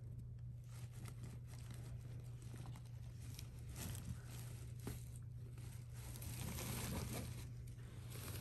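Faint rustling of the soft fabric of a cat bed, a little louder about three-quarters of the way through, over a steady low hum.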